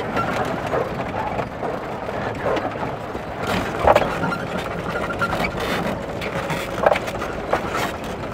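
A vehicle jolting along a rough dirt track: a steady rumble and rattle broken by knocks, the sharpest about four and seven seconds in.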